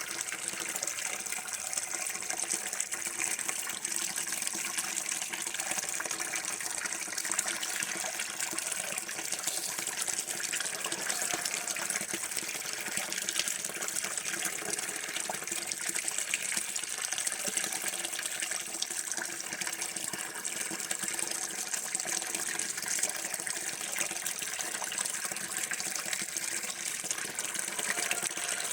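Water running steadily from a tap: a continuous, even splashing hiss.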